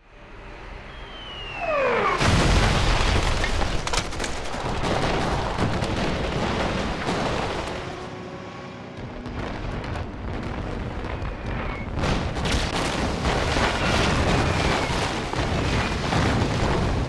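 War-film air-raid battle sound: a few descending whistles about a second in, then continuous explosions and gunfire with many sharp cracks, easing briefly around the middle and building again in the second half.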